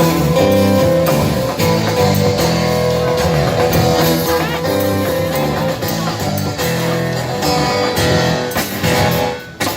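Loud guitar-led music played over a sound system under test, with a steady rhythmic low end and a brief drop near the end.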